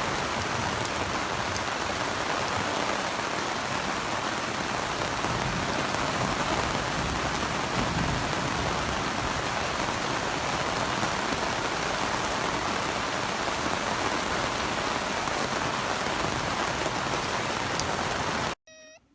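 Torrential rain pouring down in a steady, dense hiss that cuts off suddenly near the end.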